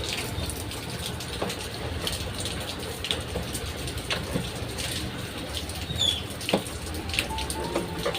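Steady rush of water, with a few light clicks and knocks over it.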